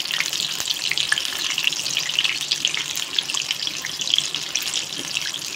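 Gram-flour-battered keema pakoras deep-frying in hot oil in a kadai: a steady crackling sizzle.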